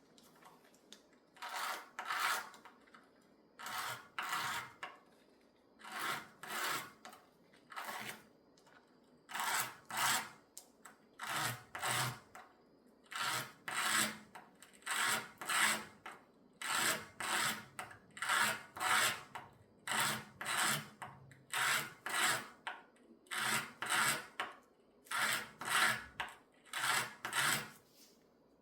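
Fine sandpaper rubbed back and forth over a piece of jewelry. Short scratchy strokes come mostly in pairs, in a steady rhythm of about one pair every two seconds.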